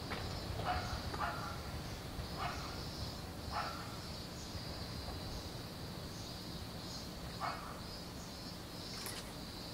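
Outdoor summer ambience: a steady high drone of cicadas, with a dog barking about five times in the distance.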